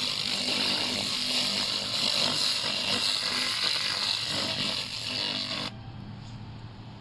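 A 1 kW handheld laser welder working on steel gives a dense, crackling hiss as it throws sparks. The hiss cuts off suddenly near the end when the beam stops, and a low steady hum is left.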